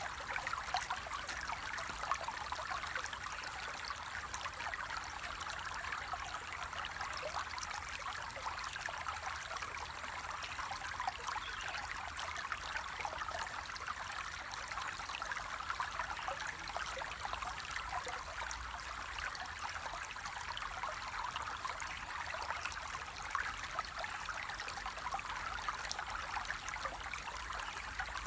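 Flowing water running steadily: a continuous rush of many small splashes, unchanging throughout.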